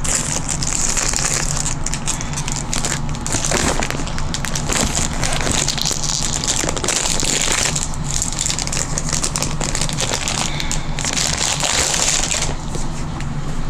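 Plastic shrink wrap crinkling and crackling continuously as it is handled and pulled off a new planner by hand.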